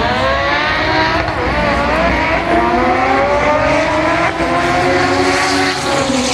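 A race car's engine accelerating hard down a drag strip, its pitch climbing steadily and dropping back at gear changes about a second and four seconds in.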